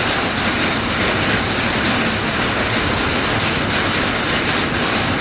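Rain and hail falling hard, a dense steady hiss with a faint pattering texture.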